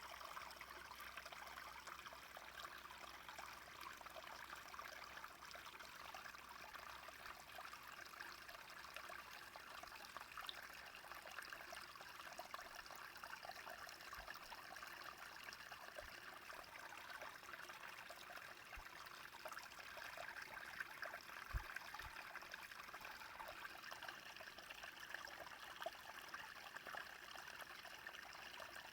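Small brook flowing, a faint, steady trickling babble of running water.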